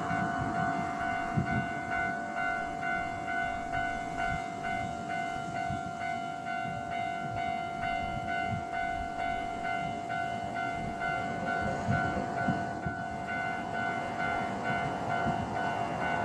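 Japanese level-crossing warning bell ringing over and over in a fast, even ding-ding rhythm, over the low rumble of a passing train.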